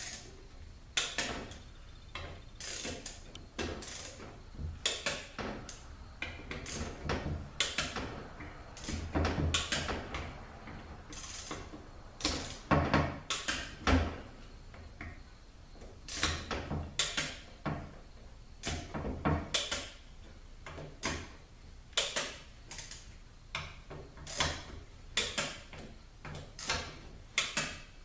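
Ratchet-head torque wrench, set to about 20 foot-pounds, clicking in runs of short strokes as it tightens the transmission pump's bolts, with a few heavier metal knocks in the middle.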